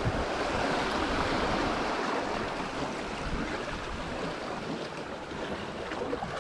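Seawater surging and splashing against shoreline rocks as small waves wash in and drain back, a steady rushing wash that swells slightly in the first couple of seconds.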